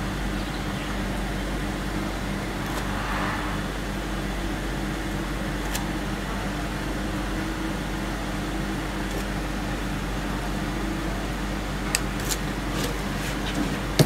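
Steady mechanical background hum with a few fixed low tones, like a running fan, air conditioner or idling engine, with a few faint clicks near the end.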